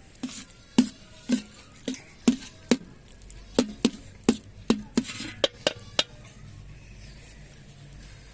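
Sharp knocks of kitchen utensils on cookware, about a dozen irregular taps with a short ring over six seconds, then they stop.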